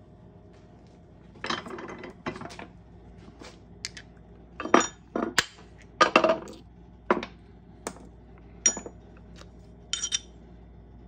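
Steel tooling and a copper coin ring being handled: a dozen or so sharp metallic clicks, knocks and clinks as the ring-stretching die parts are taken off an arbor press, the loudest about five to six seconds in. Near the end a short bright ringing clink as the ring goes onto a steel ring-sizing mandrel.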